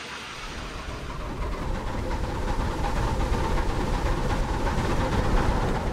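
Model Bulleid Pacific steam locomotive running along the track toward and past the microphone, a steady rumble of wheels and motor on the rails that grows louder over the first couple of seconds, then holds.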